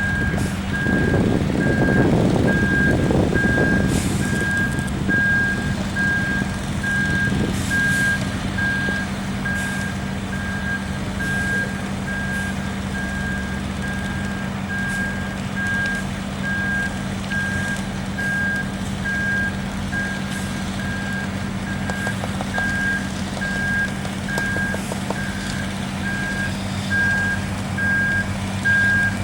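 Ready-mix concrete truck backing up: its reversing alarm beeps steadily, about once a second, over the diesel engine running, which is louder for the first few seconds and then settles.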